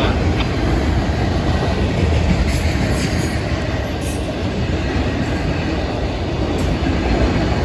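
Freight cars of a Florida East Coast Railway train rolling past, a steady rumble of steel wheels on rail with a few brief high squeaks from the wheels.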